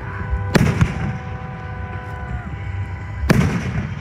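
Aerial fireworks shells bursting: two sharp booms about three seconds apart, each trailing an echoing rumble. After the first boom a steady chord-like tone holds for about two seconds.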